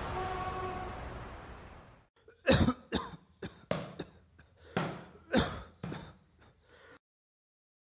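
A man coughing in a fit, about nine separate coughs over some five seconds, starting about two seconds in as a steady background hiss fades out.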